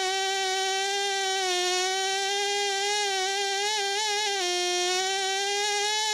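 Pneumatic air scribe running against an ammonite shell: a steady buzzing whine whose pitch sags and wavers several times, most around four seconds in.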